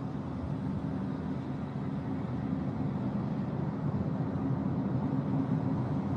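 Car cabin noise while driving: a steady hum of tyres and engine, growing slightly louder toward the end.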